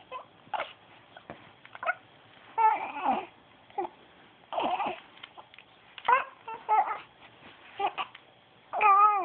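Young baby cooing and babbling: a series of short pitched coos with pauses between them, the longest and loudest near the end with a wavering pitch.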